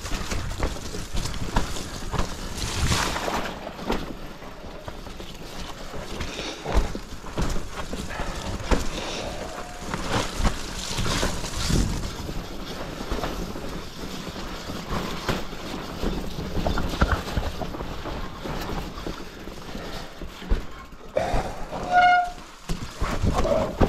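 Mountain bike descending a forest dirt singletrack at speed: tyres rolling over dirt and roots, the bike clattering and rattling over bumps, with wind rushing over the camera's microphone. A short brake squeal near the end.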